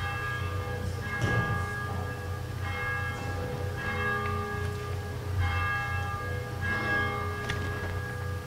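Church bell tolling, struck about every one and a third seconds, each stroke ringing on and fading into the next.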